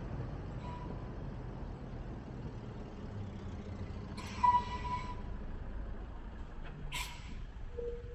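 City road traffic from a moving car: a steady low rumble, with a short loud hiss and squeal about four and a half seconds in and a sharp click about seven seconds in.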